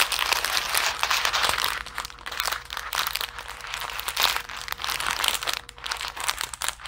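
Small plastic bags of diamond-painting drills crinkling as they are leafed through one after another: a continuous, irregular crackle of thin plastic.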